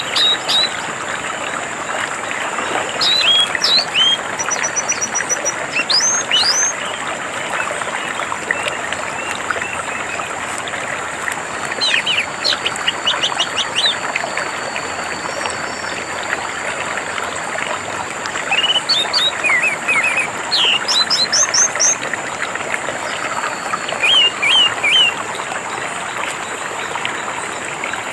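Running water trickling steadily, with an orange-headed thrush singing over it in short bursts of quick chirps and whistled phrases every few seconds.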